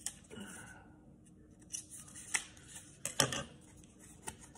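Scissors cutting open cardboard packaging: a handful of irregular snips and crinkles, the sharpest about three seconds in.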